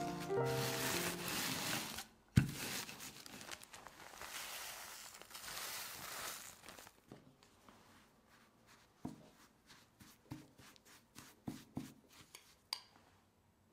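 Plastic bag crinkling as crushed digestive biscuit crumbs are worked and poured out into a glass bowl, with a single sharp knock about two and a half seconds in. After that come scattered soft taps and scrapes of a silicone spatula stirring the crumbs in the glass bowl.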